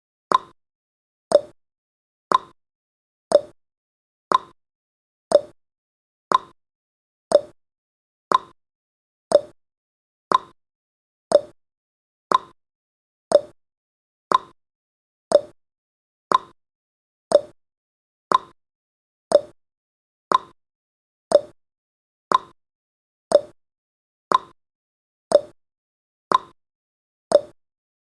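A countdown timer's sound effect: one short, sharp blip every second, evenly spaced, marking each second of the countdown.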